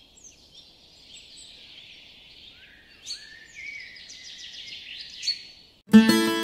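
Forest ambience of birds chirping and calling over a steady high hiss, slowly growing louder. Near the end an acoustic guitar suddenly starts playing, much louder.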